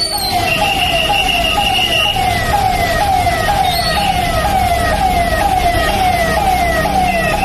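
Electronic siren cycling in quick falling sweeps, about two a second, over a steady low rumble. A higher steady tone sounds briefly near the start.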